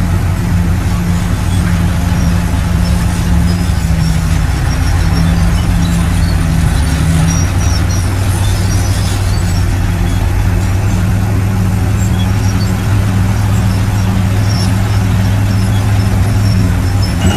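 Shantui bulldozer's diesel engine running steadily with a deep hum, with short high squeaks scattered through.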